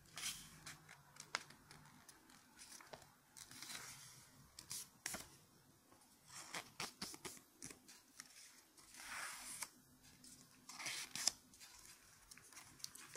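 Sheet of origami paper being handled, folded and creased by hand: crisp rustles and crinkles in irregular bursts, with a couple of sharp paper snaps.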